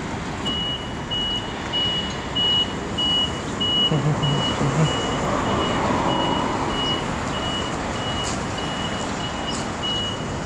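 A short high-pitched electronic beep repeating evenly, about one and a half times a second, over a steady rushing background noise.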